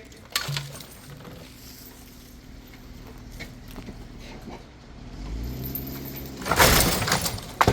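A vehicle's engine pulling on a chain hooked to a shed: it idles faintly, then revs up about five seconds in to a loud surge near the end. The shed does not give way.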